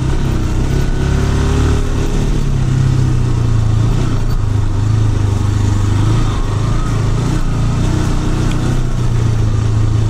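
Motorcycle engine running steadily at low speed on a rough dirt track. Its note dips and rises slightly as the throttle changes.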